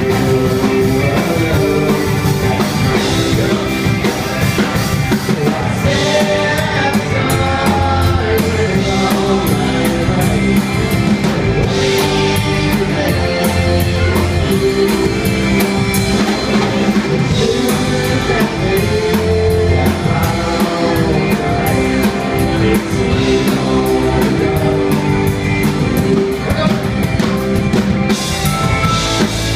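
Rock band playing a song on drum kit and guitar, with a steady beat.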